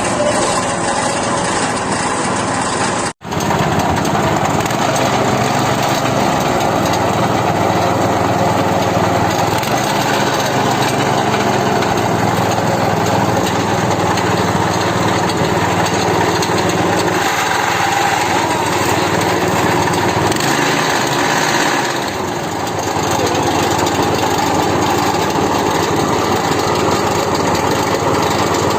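Engine-driven grass chopper machine running steadily, with a sudden brief break about three seconds in.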